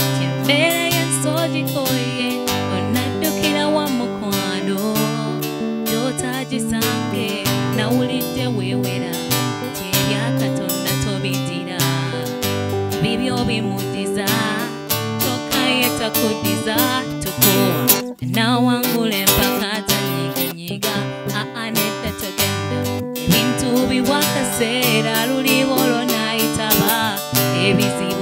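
A woman singing a Luganda song into a microphone over strummed guitar accompaniment, the melody sliding and wavering over steady chords.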